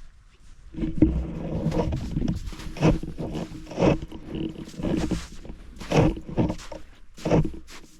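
Footsteps crunching in snow, roughly one step a second, over a steady low drone.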